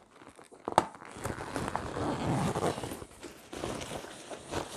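Zipper on a canoe's fabric transport bag being pulled shut, with the bag's fabric rustling as it is tugged together over the packed contents. A sharp click sounds about a second in.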